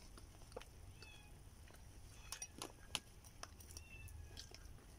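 Quiet eating sounds: scattered clicks and light scrapes of a fork in a takeaway bowl, with soft mouth sounds of chewing.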